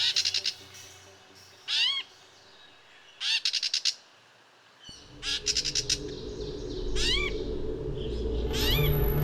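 Bird calls: short upward-sweeping cries alternating with bursts of rapid chattering trills, repeated every second or two. About five seconds in, a low steady rush comes in and builds beneath them.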